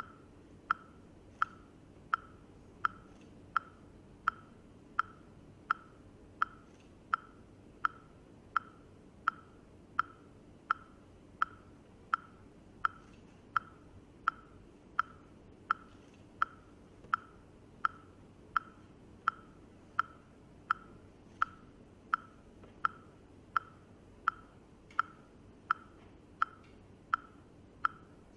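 Metronome ticking at an even pace: one short, sharp, pitched tick about every 0.7 seconds, with no music over it.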